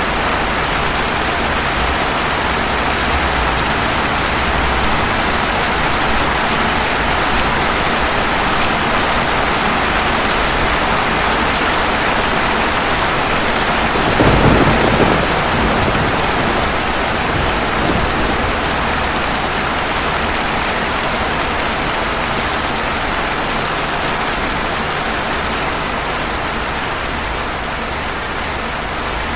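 Steady heavy rain falling on a hard surface, with one brief clap of thunder a little before halfway through.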